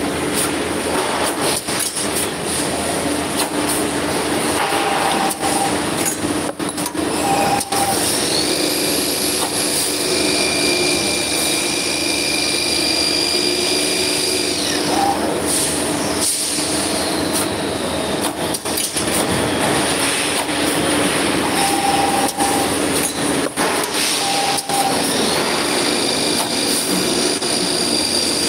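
Copper tube cutting and end-forming machine running: a loud, steady mechanical noise with frequent clicks, short mid-pitched tones every few seconds, and a high whine that starts about a third of the way in, stops about halfway, and returns near the end.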